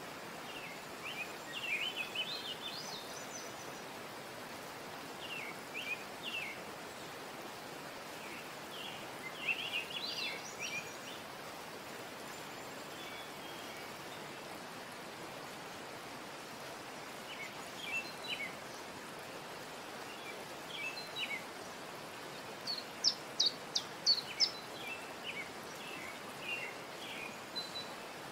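Birds chirping in short scattered phrases over a steady hiss, with a quick run of sharp chirps near the end.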